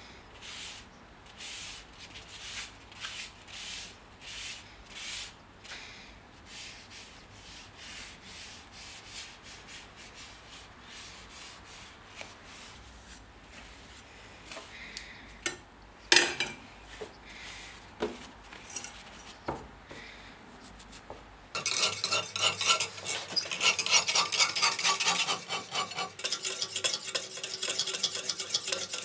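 A cloth rubbing oil into a wooden knife handle in soft, regular strokes, about two a second, with a single knock about 16 seconds in. About three quarters of the way through it gives way suddenly to a much louder sound: a sharpening stone in a guided clamp system scraping along an O1 tool-steel kitchen knife blade in quick strokes.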